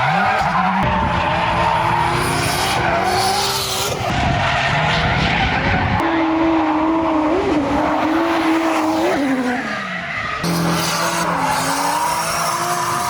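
Drift car engines revving up and down while tyres screech through slides. The sound changes abruptly several times, like a string of separate clips.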